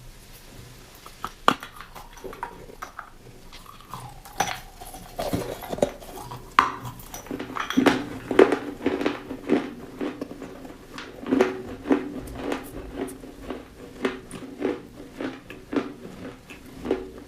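Close-miked chewing of crunchy food: a run of sharp cracks and crunches, sparse at first and then coming about one to two a second from about eight seconds in.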